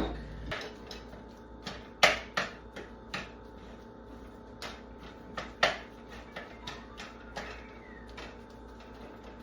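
Scattered light clicks and knocks of kitchen utensils and containers while garlic is added to the dish, irregular, the sharpest about two seconds in and another in the middle, over a faint steady hum.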